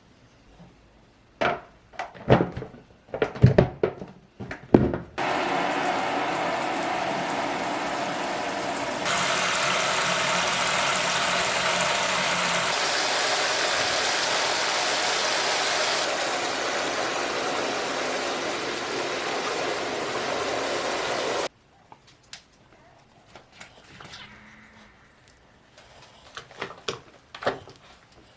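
Several knocks and clatters, then water running steadily from a tap or shower for about sixteen seconds before it cuts off suddenly, followed by a few soft clicks.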